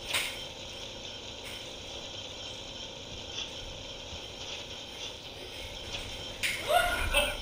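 Steady mechanical background noise with a whine and rattle, typical of commercial kitchen equipment or extraction. It has a click at the start, and near the end a brief louder sound with a short rising pitch.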